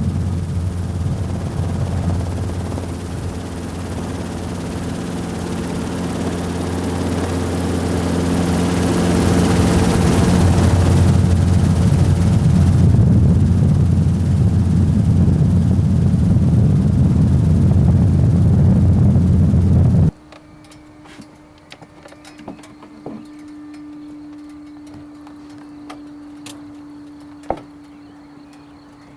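Helicopter in flight, a loud steady rotor and engine drone with a deep hum, swelling somewhat midway. About twenty seconds in it cuts off suddenly, leaving a much quieter background with a steady hum and scattered clicks.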